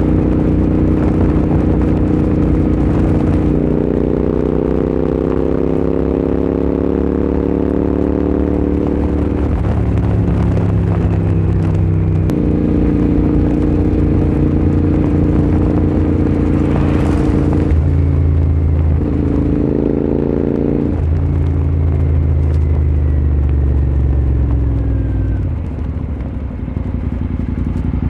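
Royal Enfield Continental GT 650's parallel-twin engine running through Red Rooster aftermarket exhausts. Its pitch climbs steadily, then steps up and down several times, and falls away near the end.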